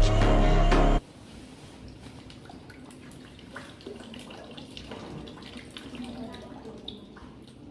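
Background music stops abruptly about a second in, followed by faint water trickling and dripping, as from water running out of the nose into a basin during a Jal Kapal nasal water cleanse.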